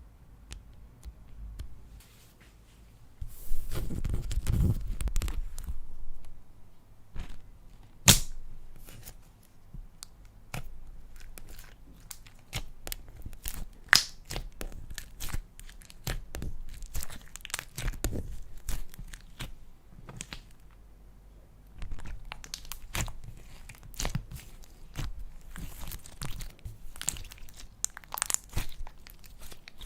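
Slime being squished, stretched and folded by hand, giving sticky crackling and sharp little pops as air pockets burst. The handling is loudest for a couple of seconds early on, with two louder pops in the middle.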